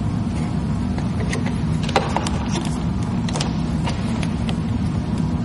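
A steady low rumble runs under faint scattered clicks and ticks as a utility knife trims vinyl camouflage wrap on an ATV fender, with one sharper tick about two seconds in.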